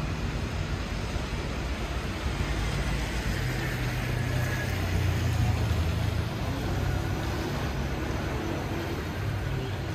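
Road traffic: a steady hiss of road noise, with a vehicle's low engine rumble that swells about halfway through and then fades.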